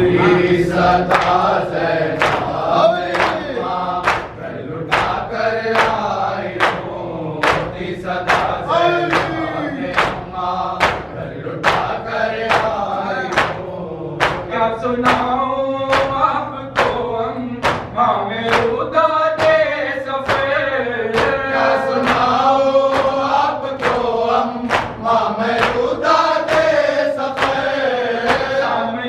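A group of men chanting a mourning nauha in unison, with sharp slaps of open hands beating on chests (matam) keeping a steady beat a little under two a second.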